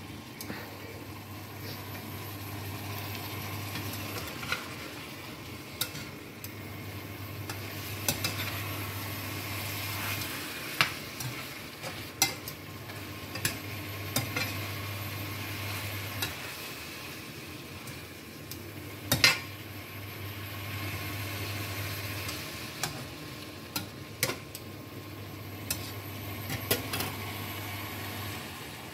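Chicken pieces sizzling in a nonstick frying pan as they cook in their own released juices, stirred with a metal spatula whose scrapes and taps on the pan come as scattered sharp clicks, the loudest about two-thirds of the way through. Under it a low hum from the glass-top hob cuts in for about four seconds and out for about two, over and over.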